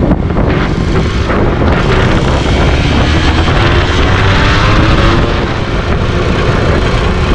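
Motorcycle engine under way in traffic, its note rising as the bike accelerates about two to five seconds in. Heavy wind rumble on the microphone runs under it.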